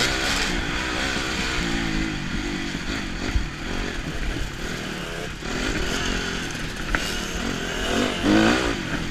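Dirt bike engine heard from on board, revving up and down as the throttle is worked over a rough trail, with a couple of sharp knocks from the bike hitting bumps. A strong rev comes near the end.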